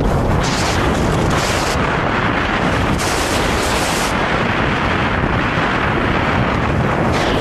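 Wind buffeting a camera's microphone while skiing downhill, a steady loud rumble, with the hiss of skis scraping over packed snow swelling in during turns, about half a second in, around three seconds in and again near the end.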